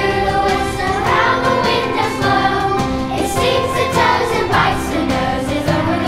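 Children's choir singing together in sustained notes.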